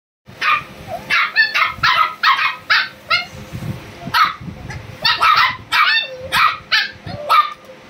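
Pomeranian puppies yapping: short, high-pitched yaps, roughly two a second, with brief gaps.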